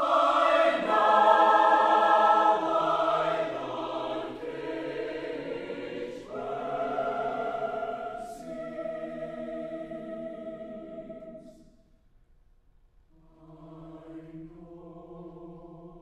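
University chorale singing long, held chords, loud at first and then softer. The singing breaks off near three-quarters of the way through and comes back quietly on a held chord.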